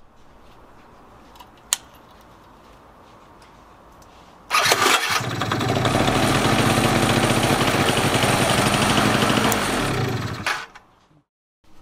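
Yamaha Vino 50cc scooter engine started on the electric starter about four and a half seconds in, catching at once and running steadily for about six seconds before it is switched off. A single click comes before it, about two seconds in.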